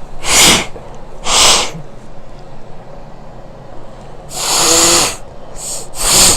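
A person forcefully blowing their nose in about five blasts of air: two short ones, then a longer one about two-thirds through with a honking tone, then two quick ones near the end.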